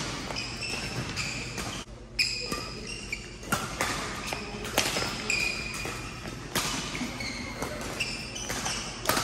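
Badminton rally: sharp racket-on-shuttlecock hits every second or two, mixed with many short high-pitched squeaks of court shoes on the sports mat, echoing in a large hall.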